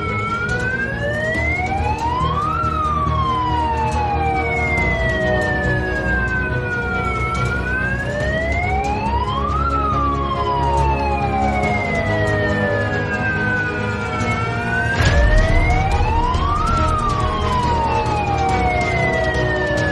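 Wailing siren, rising and falling slowly about every seven seconds, sounding the alarm for an earthquake drill. A single thump comes about three-quarters of the way through.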